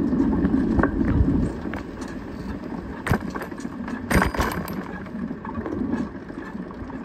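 Bicycle rolling along an asphalt street: rumbling wind and road noise, loud for the first second and a half and then lower, with scattered rattles and clanks from the bike over bumps, the loudest a cluster about four seconds in.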